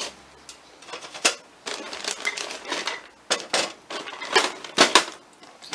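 Frozen breaded chicken breasts being laid one by one on a metal baking sheet: irregular sharp clicks and taps as the frozen pieces hit the pan, with a plastic bag crinkling as they are pulled out.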